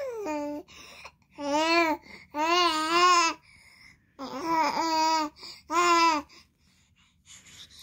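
Baby babbling and cooing: a falling squeal at the start, then four drawn-out vocal sounds whose pitch wavers up and down.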